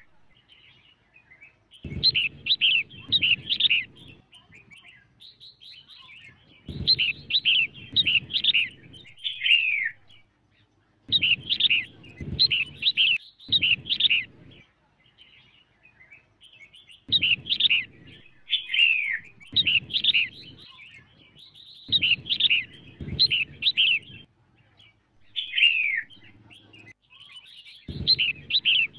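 Female red-whiskered bulbul singing: repeated phrases of quick, clear whistled notes, a phrase of two to three seconds coming roughly every five seconds.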